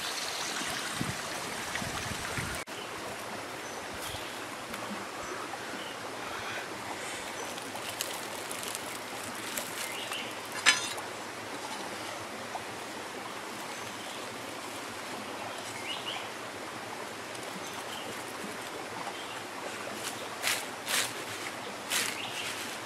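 Steady rushing ambience of running water outdoors, with one sharp click about ten seconds in. A few light knocks near the end come as fried grubs are tossed by hand in a wicker basket.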